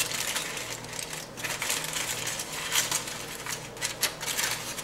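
Aluminium foil crinkling as it is pressed down and sealed over a roast: a run of irregular crackles.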